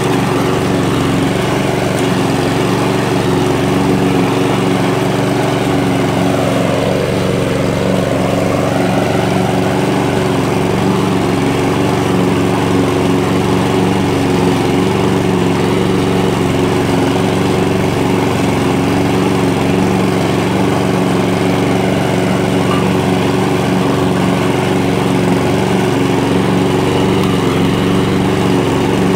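Walk-behind petrol rotary lawn mower running at a steady engine speed while it cuts grass.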